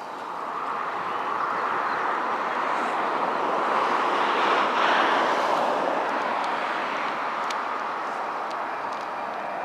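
Boeing 737 airliner's twin jet engines at take-off thrust as it lifts off and climbs out overhead: a steady jet noise that grows louder, peaks about five seconds in, then eases slightly.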